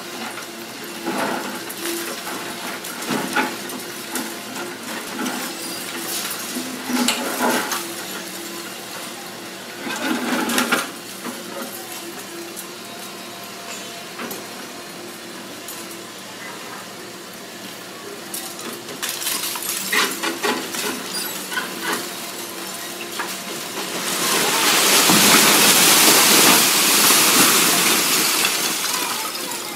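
Doosan crawler excavator running steadily while it breaks up brick and concrete walls, with scattered knocks and crunches of falling debris. About 24 seconds in, a loud rushing rumble of rubble pouring down lasts about five seconds as a large section of the building collapses.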